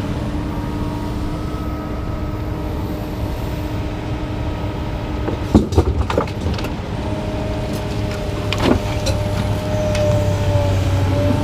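An engine running steadily with a low, even hum. A few sharp knocks come in a cluster about halfway through, and one more comes near the end.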